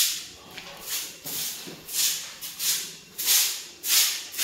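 Broom sweeping a dusty floor in short, regular strokes, about one and a half a second.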